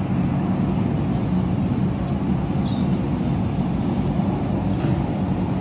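A large motor yacht's diesel machinery idling at the quay: a steady low rumble.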